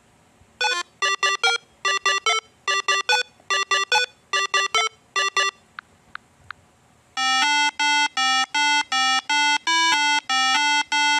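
Electronic beeping tones like a phone ringtone. There are six short runs of quick notes, one about every second. After a short pause comes an unbroken fast run of notes lasting about five seconds.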